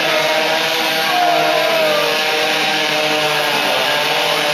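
Chainsaws cutting through logs at full throttle, the engine pitch wavering as the chains bite into the wood.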